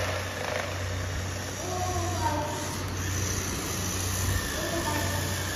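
Toy RC rock crawler's electric motor and gears running steadily as it tows a plastic toy tractor by a cable, with the toys' wheels rolling on a stone floor.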